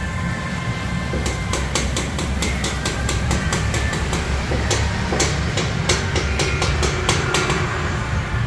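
Quick, irregular metal taps and knocks on a freshly welded car exhaust pipe, starting about a second in, over a steady low rumble.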